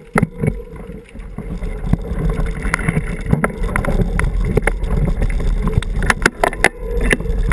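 Mountain bike rolling over a rough gravel and dirt trail: a steady low rumble of tyres and wind, with frequent sharp rattles and knocks over the bumps, bunched together about six seconds in.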